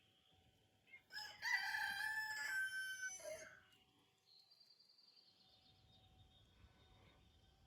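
A rooster crows once, about a second in, one call lasting about two and a half seconds. Faint high bird trills follow.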